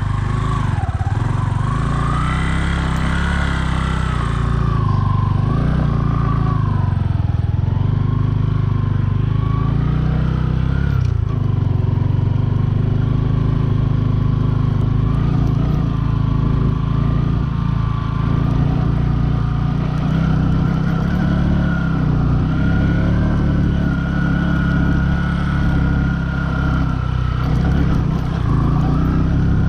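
Bajaj Boxer 150's single-cylinder four-stroke engine running while the motorcycle is ridden, its pitch rising and falling over the first ten seconds or so, then holding steadier.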